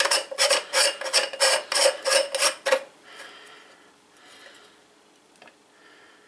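Telescope dew-shield screw cap being twisted back on by hand: its threads give short rasping strokes, about three a second, that stop about three seconds in. Faint handling noise follows.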